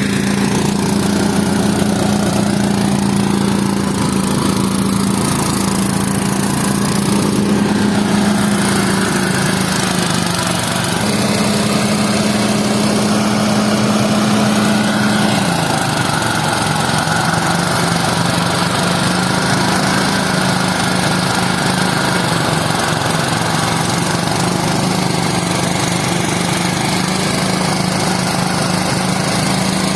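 Engine of a farm machine running steadily at the rice harvest. Its pitch sags slightly about ten seconds in and again around the middle, as if it is taking on load.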